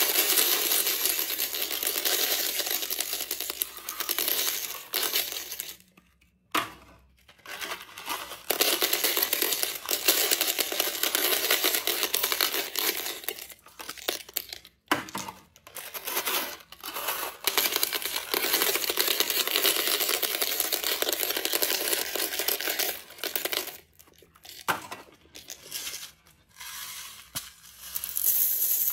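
Small hard candies (Reese's Pieces, Mike and Ike, Nerds) poured out of cardboard boxes, rattling down onto plastic eggs in a toilet bowl. Several long pours with short pauses between them.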